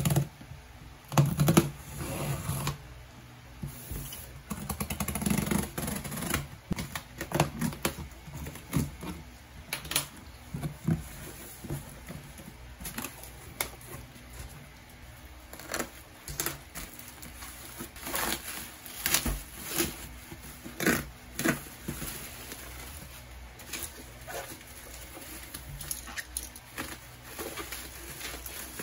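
Hands opening a taped cardboard shipping box and lifting out a bubble-wrapped package: cardboard scraping and rustling, with many scattered knocks and taps, louder in the first few seconds.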